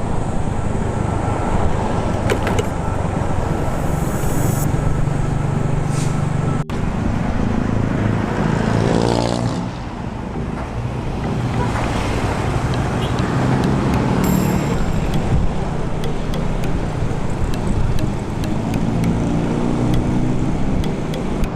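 Motor vehicle on the road: a steady engine and road rumble, with the engine pitch briefly shifting about nine seconds in.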